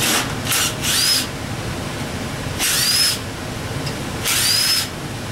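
Power tool with a 13 mm socket running off valve cover bolts on a 4.3 V6, in five short trigger pulls. In each the motor whine rises as it spins up. The last two runs are the longest.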